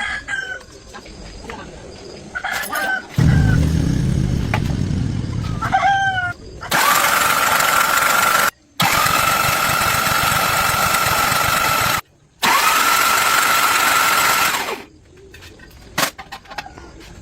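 A rooster crows a few times. A low rumble follows, then a loud, even machine hiss with a steady high whine runs for about eight seconds, cutting out twice for a moment before stopping.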